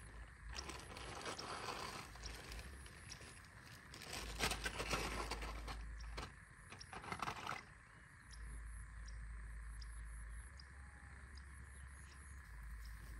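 Rustling and scraping close to the microphone for the first eight seconds or so, then a steady outdoor background of insects, with wind rumbling on the microphone off and on.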